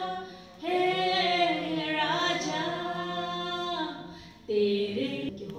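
A woman singing a Hindi worship song unaccompanied into a microphone, in long held notes: one long line from about a second in to about four seconds, then a short phrase near the end.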